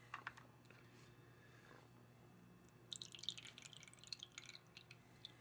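Water from a toy soda dispenser's spout dripping and trickling into a small plastic cup, a quick run of drips about three seconds in that lasts a second and a half. A few faint clicks of the plastic toy being handled come just before.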